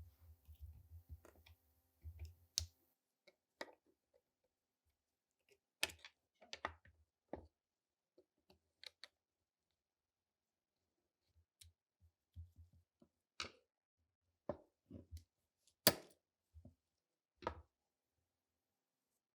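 Scattered clicks and light knocks of small metal pistol parts being handled and fitted, with pauses between them; the sharpest click comes near the end.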